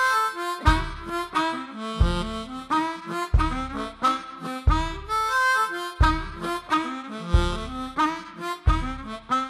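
Recorded harmonica playing a blues-style instrumental melody in quick, short notes. A low bass note sounds about every second and a third beneath it.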